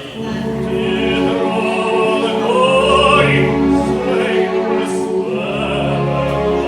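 Music with a singing voice over held chords and a bass line; the voice swoops up and down in pitch near the middle.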